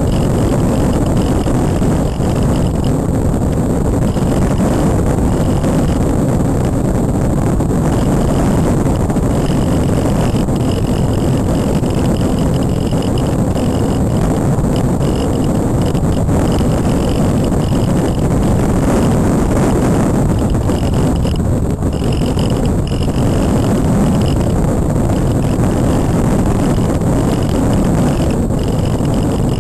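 Steady rush of air buffeting the onboard camera's microphone on a Multiplex Cularis model glider in flight, with a faint high whine that comes and goes.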